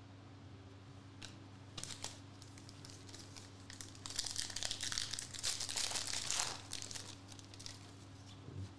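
Foil wrapper of a Contenders basketball card pack being torn open and crinkled, mostly from about four seconds in for a couple of seconds, with a few small clicks and rustles of handling before it.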